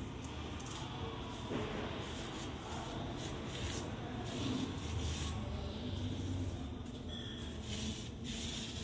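A hand rubbing and smoothing powder in a shallow plate: a run of soft, uneven scraping strokes.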